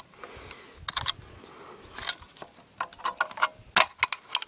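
Irregular sharp clicks and rattles of something being handled, sparse at first, then coming thick and loud in the last second and a half.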